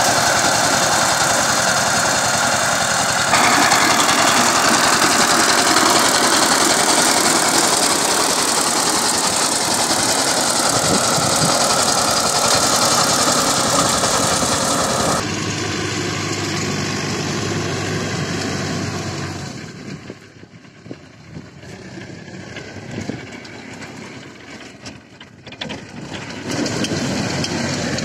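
Two-wheel power tiller's single-cylinder diesel engine running steadily under load while it tills dry soil. About halfway through, the sound changes and falls to a quieter, uneven engine noise. It grows loud again near the end.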